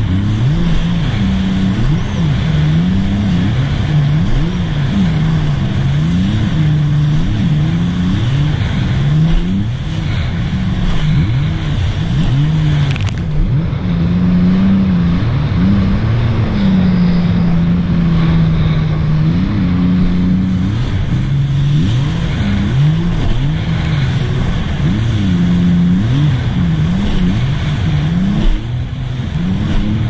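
Supercharged three-cylinder engine of a 2018 Sea-Doo RXT-X 300 personal watercraft, fitted with a Riva Racing free-flow exhaust, running at speed with its revs swinging up and down every second or two and held steady for a few seconds at a time. A steady rush of noise runs under it.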